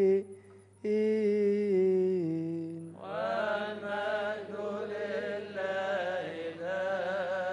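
Coptic liturgical chant. A single male voice holds long, slowly descending notes to close the Gospel reading. From about three seconds in, a group of deacons takes up the chant together.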